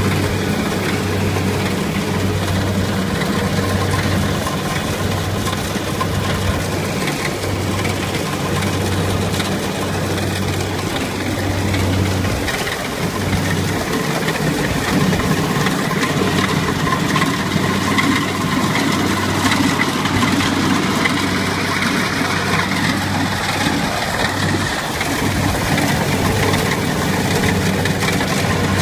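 Kubota rice combine harvester running while it cuts rice: steady engine and harvesting machinery noise, with a low throb pulsing about once a second.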